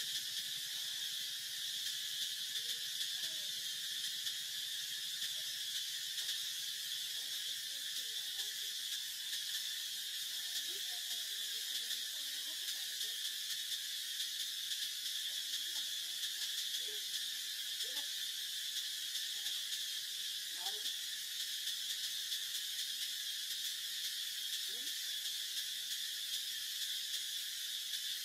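Steady, high-pitched chorus of insects, an unbroken shrill drone, with faint short wavering calls scattered underneath it.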